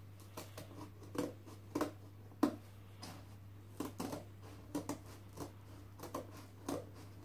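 Scissors cutting through corrugated cardboard: a dozen or so short snips at an uneven pace.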